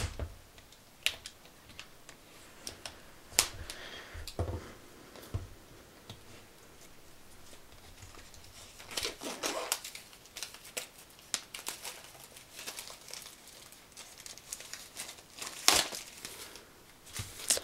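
Clear plastic shrink-wrap being torn open and pulled off a cardboard software box: scattered crinkles and tears, busiest around the middle and again near the end.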